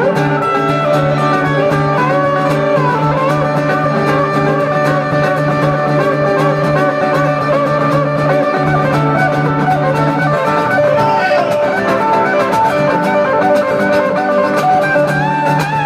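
Live instrumental guitar duo: a hollow-body electric guitar plays a lead line with sustained notes that bend and waver, over a steadily played acoustic guitar.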